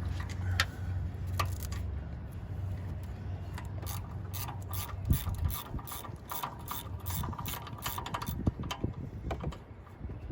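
Hand socket ratchet clicking in quick runs as the engine mount bolts are turned, to free the engine so it can be pulled forward.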